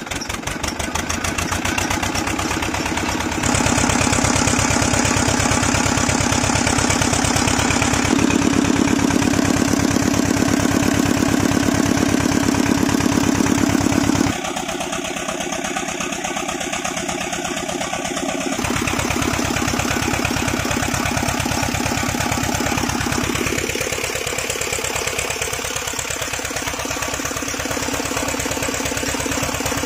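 Eicher tractor diesel engine just hand-started, picking up speed over the first second or two and then running steadily with a fast, even firing beat.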